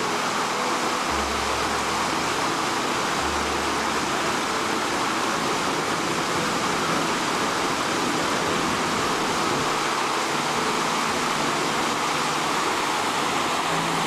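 Whitewater rapids rushing steadily down a granite chute.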